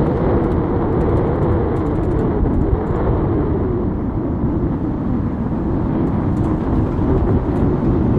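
Toyota 4Runner driving slowly on a dirt forest road: steady engine and tyre noise with a low drone, the engine note dropping a little about four seconds in.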